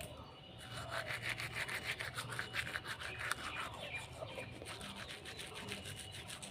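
Manual toothbrush scrubbing back and forth over teeth in a foamy, toothpaste-filled mouth: quick, rhythmic wet brushing strokes that start about half a second in, briskest in the first half.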